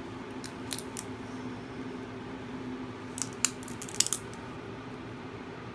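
Sharp clicks from a crocodile monitor lizard mouthing a balut egg, its teeth and jaws on the eggshell: a few clicks about a second in, then a quicker cluster around three to four seconds in. A steady low hum runs underneath.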